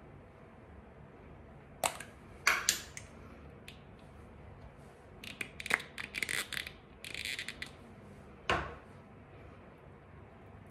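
A small skincare pump bottle being handled and pumped: a few sharp clicks and taps, with a cluster of quick clicks and light rustling in the middle as the serum is dispensed onto the fingers, and one more tap near the end.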